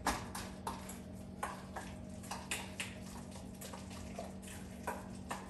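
A spoon clinking and scraping against a stainless-steel mixing bowl as a thick seasoning paste is stirred: short irregular clinks, about two a second, over a faint steady hum.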